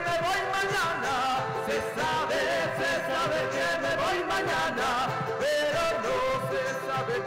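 Live Andean and Latin American folk group performing: a man and a woman singing a melody into microphones over acoustic guitars.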